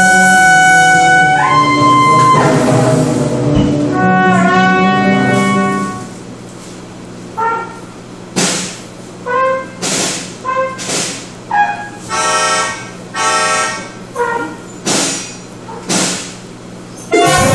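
Live acoustic ensemble music: long held pitched notes for about six seconds, then a sparse run of short separate notes and sudden hits with brief pauses between them.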